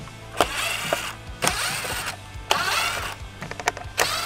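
Cordless drill-driver backing Phillips screws out of a plastic grille: three short runs of the motor whirring up and down, with sharp clicks between them.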